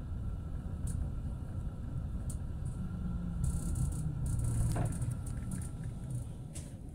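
Tram running, heard from inside the car: a steady low rumble with a few sharp clicks and rattles, and a low hum that swells between about three and five seconds in.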